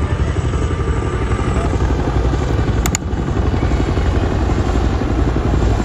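Formation of military helicopters, a tandem-rotor CH-47 Chinook slinging a large flag with AH-64 Apache escorts, passing low overhead, their rotors beating steadily.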